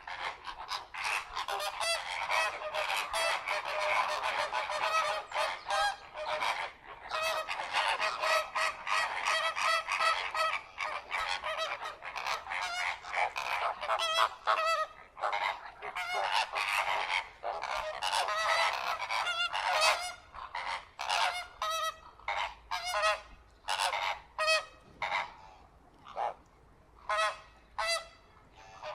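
A flock of flamingos honking, many nasal, goose-like calls overlapping in a dense chorus that thins out later into single, separate honks.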